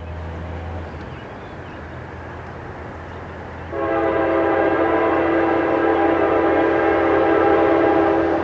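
Locomotive air horn sounding one long, steady blast, a chord of several notes, starting about halfway through.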